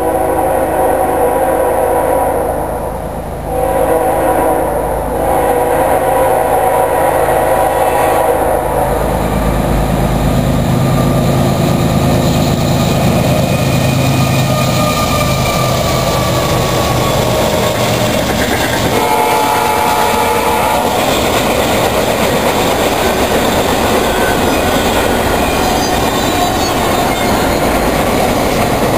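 Two CSX diesel freight locomotives passing: the horn sounds two long blasts, then the engines rumble by, and a shorter horn blast comes about two-thirds of the way through. After that comes the steady rolling clatter of double-stack container cars.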